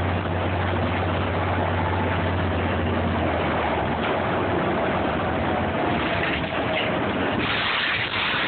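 Interior of a New Flyer DE40LFR diesel-electric hybrid bus under way: steady drivetrain and road noise, with a low hum that fades about halfway and a faint whine in the middle. The noise brightens a little near the end.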